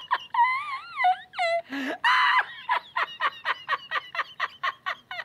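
A man's hard, high-pitched fit of laughter: rapid squeaky pulses, about five a second, broken by a long wavering squeal near the start and a gasping wheeze about two seconds in.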